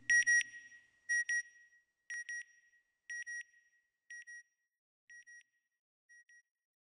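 Electronic sound effect for a closing logo: a pair of short, high beeps repeated about once a second, fading away like an echo, seven pairs in all. A faint low hum dies away in the first half-second.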